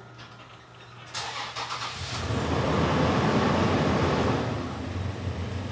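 Car engine cranking and starting: a short burst of cranking about a second in, then the engine catches, flares up and settles to a steady idle.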